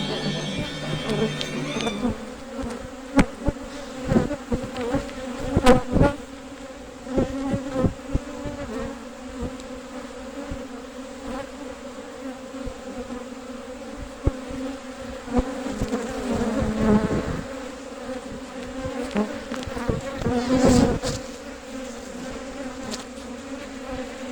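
Honey bees buzzing in a steady, pitched hum, with occasional knocks and bumps, the loudest about six seconds in. Music ends about two seconds in.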